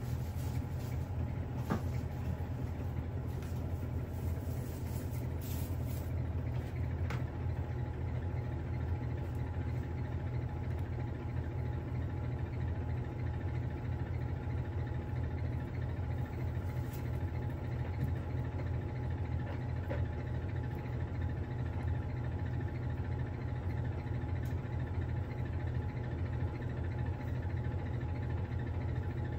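Steady low mechanical hum, with a few faint clicks in the first several seconds.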